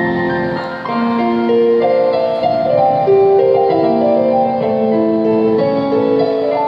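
Electronic keyboard playing a slow hymn melody in held, smoothly joined notes over sustained chords, with no voices singing.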